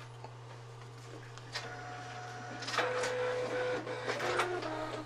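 Photo printer starting a print job on A3 fiber-base paper: its motors whine in several steady tones that step up and down in pitch, with clicks. The sound starts about a second and a half in and grows louder about a second later.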